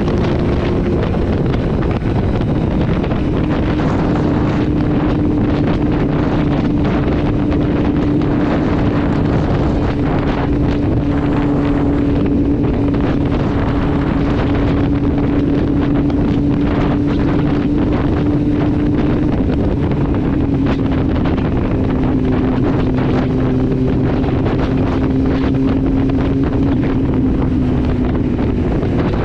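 Kawasaki Z750's inline-four engine through an Akrapovic exhaust with the dB killer removed, running steadily at highway speed, its pitch easing down a little past the middle as the bike slows. Heavy wind noise on the microphone runs under the engine.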